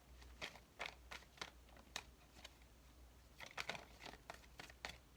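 Tarot cards being shuffled and handled: a faint run of irregular snaps and flicks, bunched together about three and a half seconds in, over a low steady hum.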